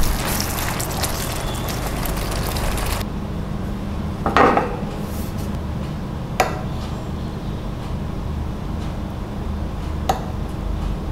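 Sauce bubbling and sizzling in a frying pan as it is stirred, cut off suddenly after about three seconds. Then a metal fork scrapes once against a ceramic plate and clinks on it twice more, sharply, with a low steady hum underneath.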